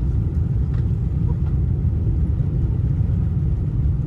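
Steady low rumble of a Boeing 747-400 airliner heard from inside the cabin during the approach and landing.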